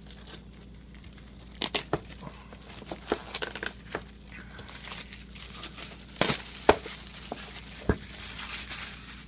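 Plastic shrink wrap being torn and peeled off a board game box: irregular crinkling and sharp crackles, loudest about two thirds of the way through.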